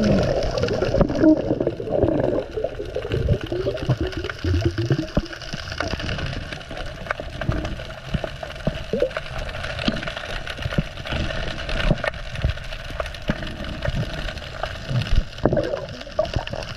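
Water gurgling and sloshing close to the camera microphone, with many small knocks and splashes.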